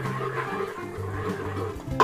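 Background music with steady held notes, over garlic sizzling in hot oil and margarine.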